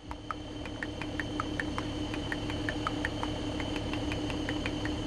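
Truck engine running, heard inside the cab as a steady low rumble and hum, with small irregular ticks and rattles about three or four times a second.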